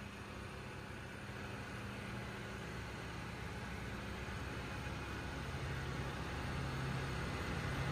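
Lexus TX500h idling: a steady low hum over a soft hiss, growing slightly louder toward the end.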